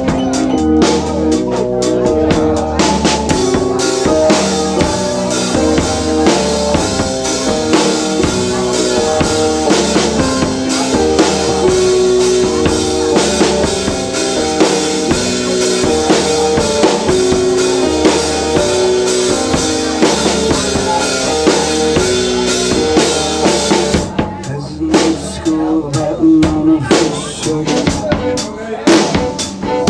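Live band music: a keyboard playing held chords over a drum kit keeping a steady beat with bass drum and snare. About 24 seconds in the full sound thins out to sparser hits and notes.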